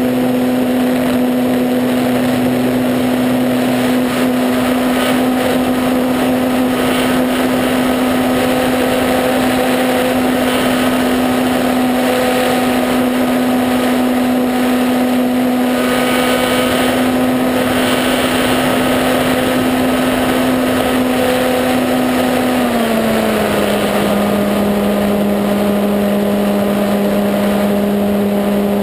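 E-flite Apprentice RC plane's electric motor and propeller running steadily in flight: a constant pitched hum with air rushing past. About 22 seconds in, the pitch steps slightly lower as the throttle is eased back.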